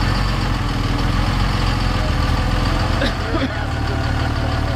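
Dodge Ram 2500 pickup's engine running steadily at low revs as the heavy truck crawls over boulders.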